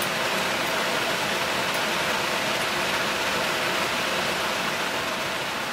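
Steady rushing noise of the submarine compartment's ventilation and machinery, beginning to fade near the end.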